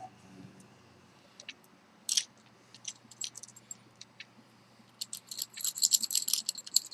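Small metal lock parts clicking as a padlock's disc pack is handled, then from about five seconds in a quick run of light metallic clinks as the stacked discs and spacers are worked off the pack.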